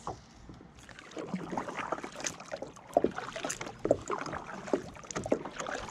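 Kayak paddle strokes dipping and splashing in the lake water, picking up about a second in, with irregular small knocks and drips between strokes.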